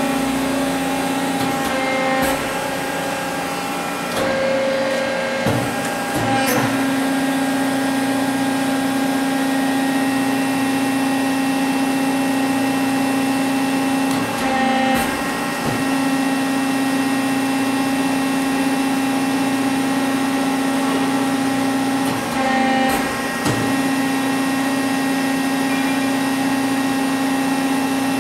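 Hydraulic pump unit of a 100-ton Accurpress 710010 press brake running with a steady, strong low hum. The tone briefly breaks or shifts a few times.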